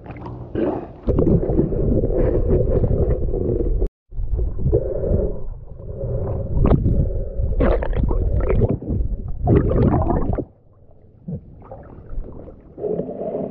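Muffled underwater rumbling and gurgling of moving water and bubbles, picked up by a submerged camera. It drops away sharply about ten seconds in as the camera comes up into the air, leaving faint splashing.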